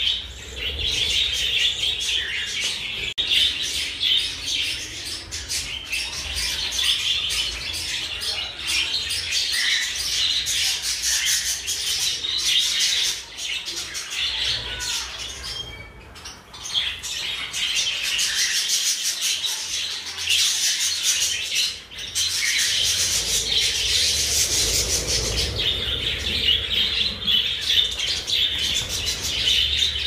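A flock of budgerigars chattering and chirping all at once, a dense, continuous warble of many birds, thinning briefly about halfway through.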